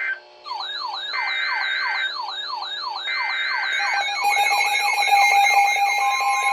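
Emergency Alert System broadcast tones: three short bursts of data-header tones, overlaid by an electronic siren sweeping up and down about twice a second and quickening. From about four seconds in, steady alert tones join and the sound gets louder.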